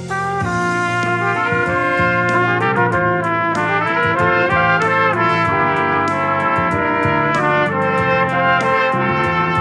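A trio of trumpets plays the melody in harmony over a pop backing track with drums. The trumpets come in together right at the start.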